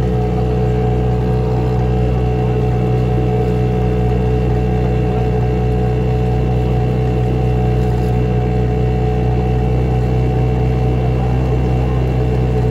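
Boat engine running at a steady speed, an even drone with no change in pitch.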